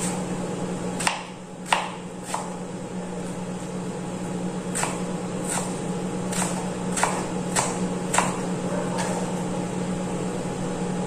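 Kitchen knife dicing peeled apples on a wooden cutting board: about ten sharp knocks of the blade striking the board, irregularly spaced, over a steady low hum.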